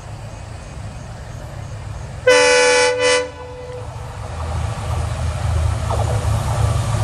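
Diesel locomotive horn sounding about two seconds in: one loud blast, cut by a short break into a brief second note, over the low rumble of the approaching train. After the horn, the engine and wheel rumble grows steadily louder as the train draws near.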